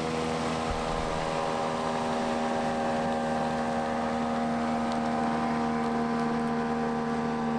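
Motorboat engine running steadily at one constant pitch.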